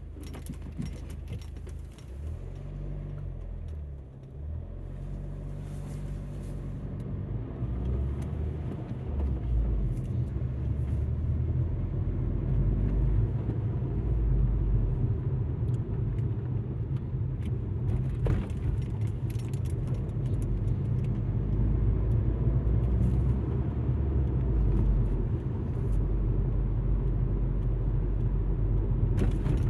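Alfa Romeo MiTo driving on the road, heard from inside the cabin: a steady low engine and road rumble that grows louder about a quarter of the way in, with light scattered rattles.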